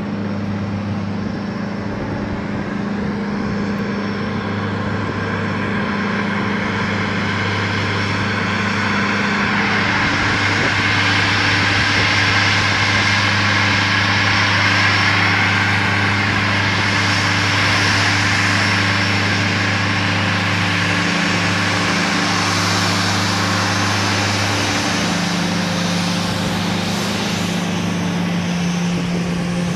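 Twin rear-mounted turbofan engines of a taxiing E-11A jet whining at low taxi power, with the whine and rush growing louder as the aircraft approaches and passes around the middle, then easing. A steady low drone runs underneath.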